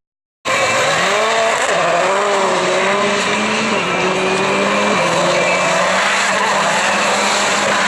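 Rallycross supercar engines running hard on track. They cut in about half a second in, climb in pitch, then step down twice as the driver shifts up, over a steady haze of engine and tyre noise.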